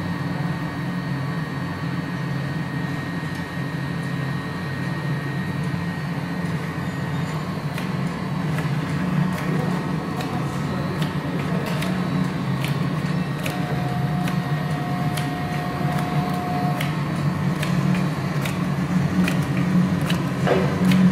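Print-and-apply labeling machine running: a steady drone from its conveyor and drives, with irregular sharp clicks from about a third of the way in as labels are printed and pressed onto plates. A steady whine sounds for about three seconds a little past the middle.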